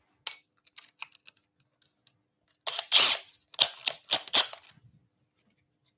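Sharp metallic clicks, then a few short, loud rattling bursts near the middle: a cordless drill's chuck and bit being reseated in a metal dowelling jig after the bit slipped in the chuck.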